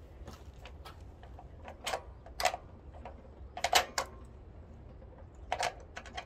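Scattered clicks and light knocks of engine parts being handled and worked loose at a small four-stroke engine's carburettor and air filter mount, the loudest a little before the four-second mark, over a steady low rumble.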